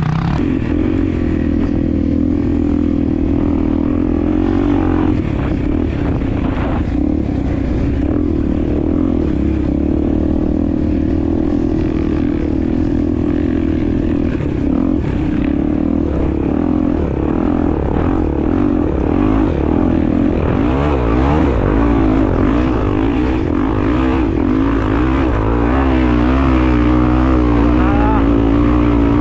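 Honda Tornado's single-cylinder four-stroke engine running under way on a trail ride. It runs steadily through the first half, then the revs rise and fall repeatedly as the throttle changes.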